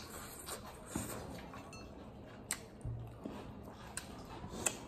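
Close-miked chewing and mouth sounds of a person eating rice and pan-fried vegetable pakora by hand, with a few sharp wet clicks and smacks scattered through.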